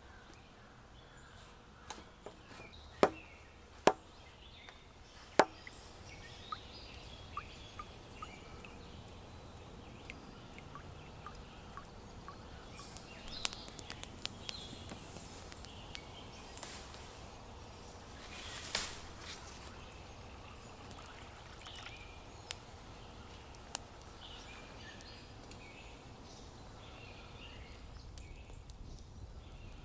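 Several sharp knocks, the loudest three close together a few seconds in, then scattered lighter ticks over a faint outdoor background.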